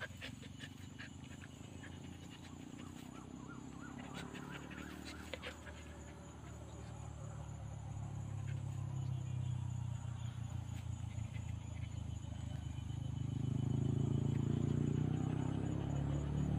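Dry cut grass rustling and crackling as a dog rolls and squirms on its back in it. A low engine drone grows steadily louder through the second half and ends up the loudest sound.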